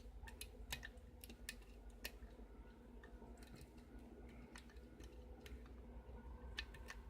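Faint, irregular light clicks of a lock pick working the pins of a six-pin challenge lock while single-pin picking, thickest in the first couple of seconds with a few more near the end.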